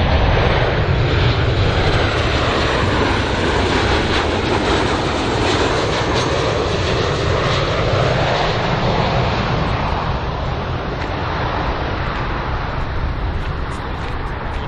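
Boeing 737-800 BBJ2's CFM56 turbofan engines on landing approach: a steady jet rumble and roar that eases off slightly over the last few seconds.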